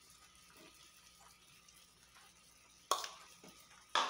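Two sharp clinks with a short ring, about a second apart (the second near the end), as kitchenware knocks against the cooking pan. Between them the olives stir faintly and wetly into the tomato sauce.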